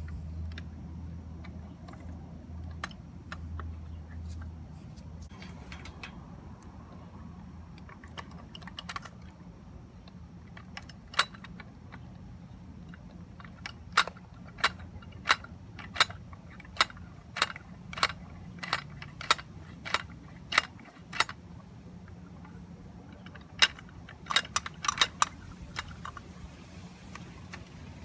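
Small sharp clicks and taps from a First Gear diecast Heil front-loader garbage truck model as its lift arms and plastic container are worked by hand. The clicks come sparsely at first, then regularly about twice a second through the middle, and then in a quick cluster near the end.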